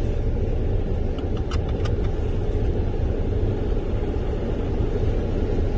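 Car running at low speed, heard from inside the cabin as a steady low rumble of engine and tyres. A few light clicks come about a second and a half in.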